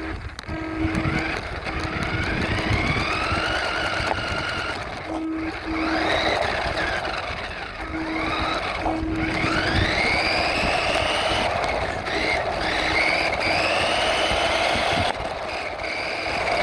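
RC truck's motor whining, rising in pitch each time it speeds up and then holding, several times over, with a steady rushing noise beneath.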